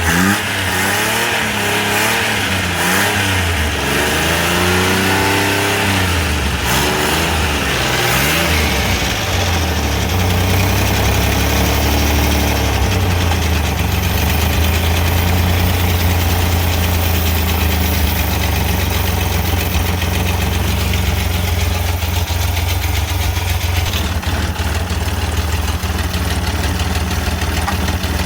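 Multicab's 12-valve engine just after starting. It revs unevenly up and down for the first several seconds, then settles into a steady idle.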